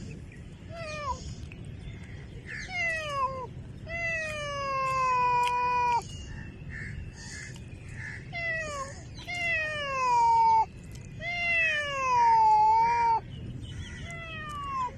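Domestic cat meowing repeatedly, about seven meows: short ones mixed with long drawn-out calls whose pitch falls away.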